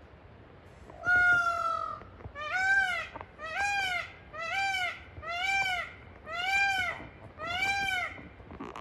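Peacock (male Indian peafowl) calling loudly: one long, level wail, then six shorter arched calls about once a second.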